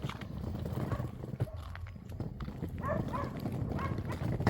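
Short chirping animal calls, mostly in pairs, heard a few times over a steady low rumble, with scattered clicks.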